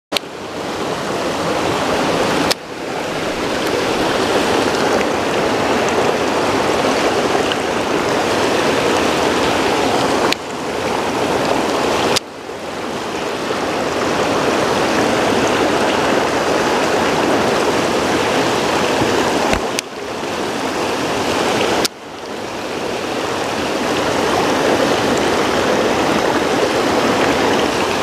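Mountain stream rushing over rocks in a small rapid, a loud steady rush of water. The level drops away abruptly about five times and builds back over a second or two each time.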